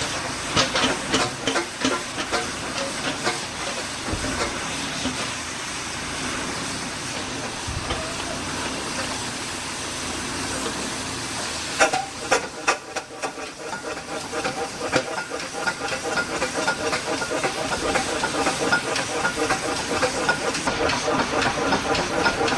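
Fowell steam traction engine in steam: a steady hiss of escaping steam under a quick, regular beat from the running engine. The beat is plain in the first few seconds, fades to mostly hiss, then after a sudden change about halfway comes back and grows louder at several beats a second.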